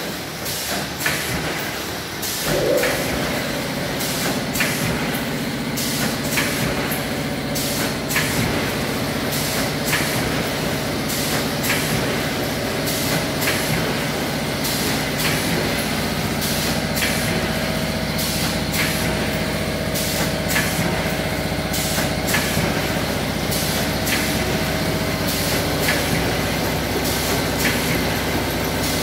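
Automatic snack pouch packing machine running: a steady mechanical hum that comes on about two and a half seconds in, with a sharp clack about every two seconds as the machine cycles through each pouch.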